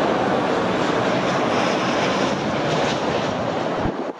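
Jet engines of an Airbus A320neo on final approach passing overhead, a steady loud roar that drops away suddenly near the end.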